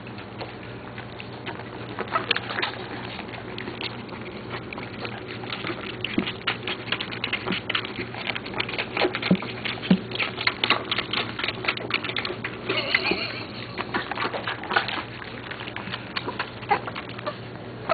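West Highland white terrier puppies suckling from their mother: a steady run of small wet clicks and smacks, busier in the second half.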